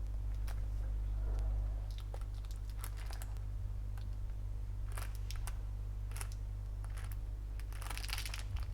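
Light plastic clicks of an LED strip light's remote control buttons being pressed one at a time, a dozen or so at uneven intervals, over a steady low hum.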